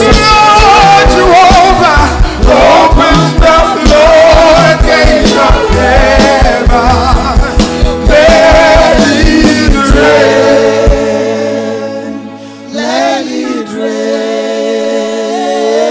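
Gospel worship song: amplified singing with a band's drum and bass beat. About eleven seconds in, the drums and bass drop out and the voices carry on more softly with long held notes.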